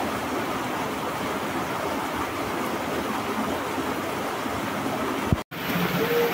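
Steady rushing of a muddy, rain-swollen stream flowing over rocks, cutting out for an instant about five and a half seconds in.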